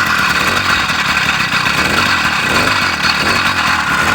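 Small two-stroke bicycle kit engine running with a steady, buzzing rasp, blipped lightly on the throttle to warm it up while it is cold.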